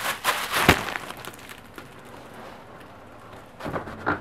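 Plastic wrapping crinkling and rustling as it is crumpled in the hand, dying away after about a second; a few light knocks near the end as the box is handled.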